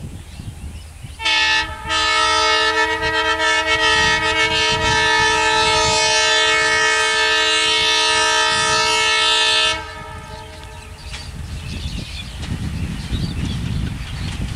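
Bangladesh Railway diesel locomotive's air horn: a short toot, then one long blast of about eight seconds with several tones sounding together. After the horn stops, the approaching train's engine and wheels rumble, growing louder near the end.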